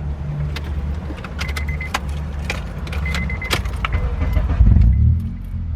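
Car engine idling with a steady low hum that swells briefly near the end. Over it come many sharp clicks and light jingling rattles of hands working in the car, with a faint high chime coming and going.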